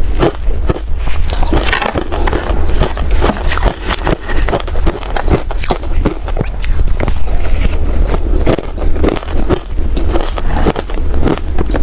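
Ice being bitten and chewed: a dense, steady run of sharp crunching cracks.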